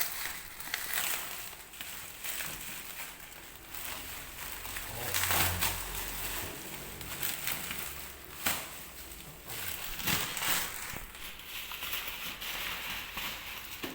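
Laptop packaging being unwrapped and handled: crinkling and rustling with scattered sharp clicks and knocks, and a dull thump about five seconds in.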